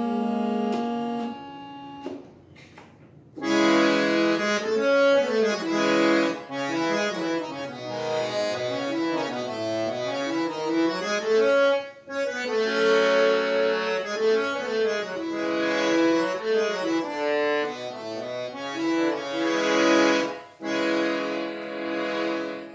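Hand-pumped two-reed harmonium being played: a chord held at the start, then, after a short gap, a continuous melody, with a brief break about halfway through and another near the end.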